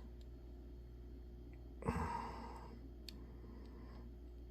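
Faint clicks of fingernails picking at the protective plastic film on acrylic craft sticks, with one short breathy sigh about two seconds in.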